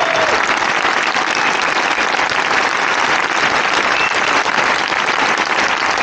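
A very large crowd applauding: dense, steady clapping that holds at an even level.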